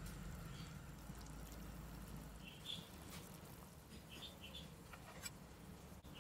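Water boiling in a stainless steel saucepan with pork and chicken, bubbling faintly, while a metal ladle stirs and skims, giving a few short squeaks and one light tap against the pot about five seconds in.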